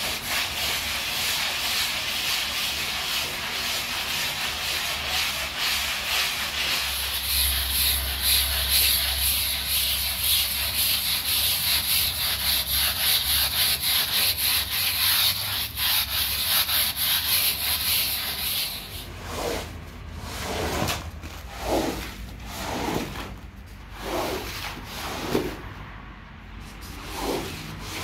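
Hand scrub brush scrubbing a wet, lathered rug, fast and steadily, with the bristles rubbing through the soapy pile. After about nineteen seconds it gives way to slower, separate strokes, about one a second.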